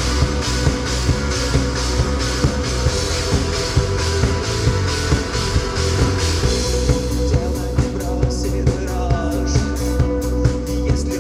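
Rock band playing live, an instrumental passage: the drum kit keeps a steady beat under sustained instrument tones. The cymbal wash drops away about two-thirds of the way through, leaving sharper separate hits.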